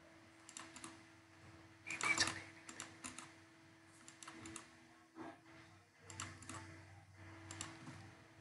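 Computer keyboard typing: faint short runs of key clicks, the loudest burst about two seconds in, over a steady low electrical hum.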